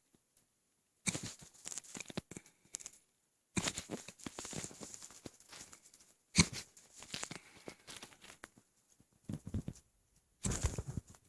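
Gurgling and crackling from a stomach full of milk and trapped air bubbles, in irregular bursts with short quiet gaps. About six seconds in comes one sharp, loudest jolt, a hiccup.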